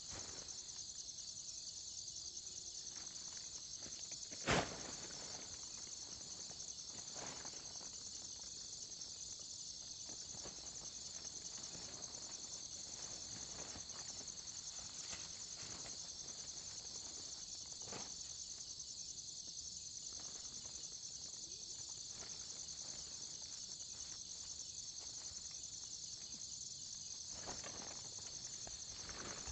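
Steady high-pitched chorus of insects, with a single sharp knock about four and a half seconds in.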